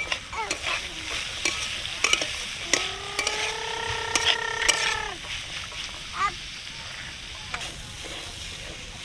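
A metal spatula scraping and tapping against an aluminium kadai as beetroot, carrot, peas and crushed ginger and green chilli are stirred and sizzle in hot oil. A steady pitched tone holds for about two seconds near the middle.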